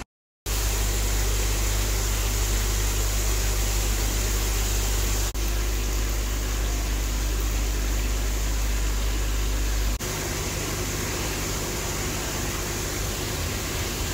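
Steady low hum with an even hiss over it, from aquarium pumps and aeration running. The sound breaks off for an instant about five seconds in, and the deepest part of the hum drops away about ten seconds in.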